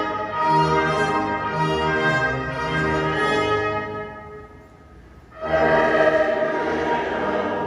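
Orchestral music with brass, in long held notes; it fades down about four seconds in and comes back louder about a second later.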